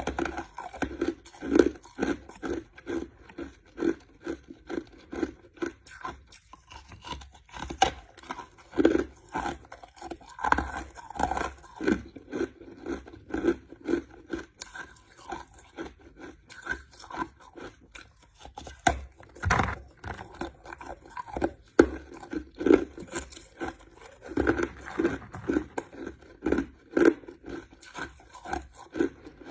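A person chewing crushed ice: repeated crunching bites at about two a second.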